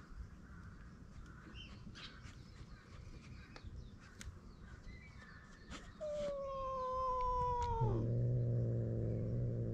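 A cat's threat yowl: a long, slowly falling wail starts about six seconds in and drops sharply into a low growl near the end. Faint clicks come before it.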